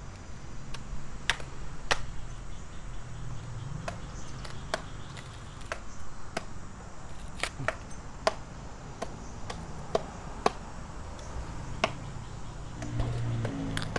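A knife chopping into palmyra palm fruit: sharp, irregular strikes about once a second over a low background rumble.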